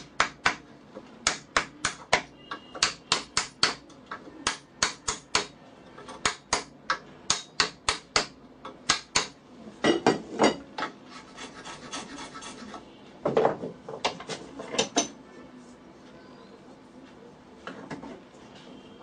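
A hammer striking a wood chisel cut into a wooden workpiece clamped in a bench vise: sharp taps in quick runs, about two to four a second, for roughly the first half. Then a few seconds of scraping and knocking before it goes quieter near the end.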